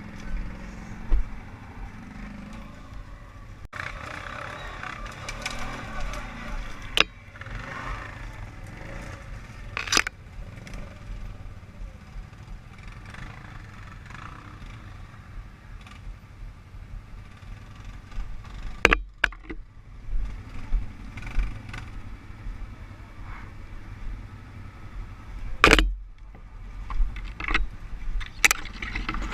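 ATV running slowly over rough ground: a low rumble with scattered sharp knocks and thumps.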